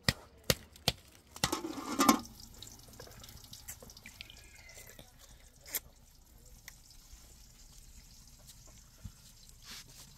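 Water splashing and dripping, after a few sharp knocks in the first second; the loudest splash comes at about two seconds, then fainter scattered drips.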